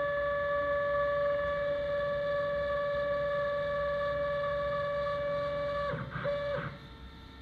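AXYZ CNC router running with a steady high-pitched machine whine, which wavers and cuts off about six seconds in.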